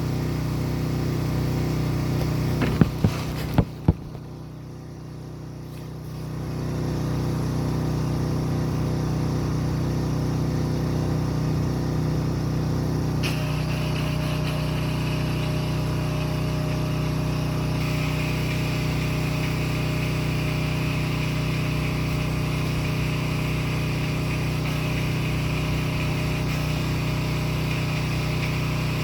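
Pressure washer's engine and pump running steadily. About three seconds in the sound drops away with a few sharp clicks, then comes back up around six seconds in; from about thirteen seconds in a steady high hiss of water spray joins the engine.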